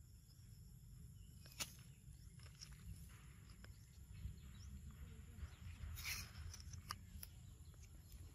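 Quiet forest ambience: a steady high insect drone over a low rumble, with a few small clicks and a brief rustle about six seconds in.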